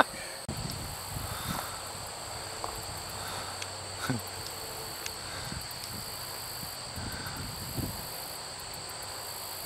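Insects trilling steadily in two unbroken high tones, with a few faint soft knocks now and then.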